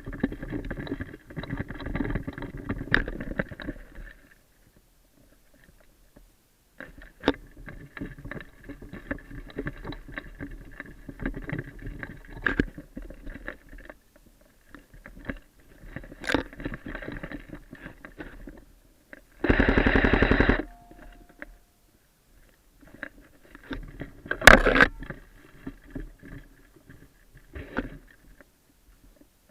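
Airsoft guns firing: scattered single shots, and a burst of rapid automatic fire lasting about a second, some two-thirds of the way through, with rustling and movement noise between the shots.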